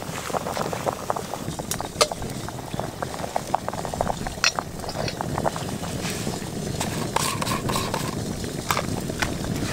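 A pot of spinach at a full boil over a wood fire, bubbling and hissing steadily, with scattered sharp clicks and ticks throughout.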